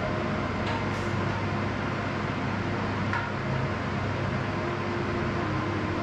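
Steady rushing noise of an electric floor fan running, with a few faint clicks.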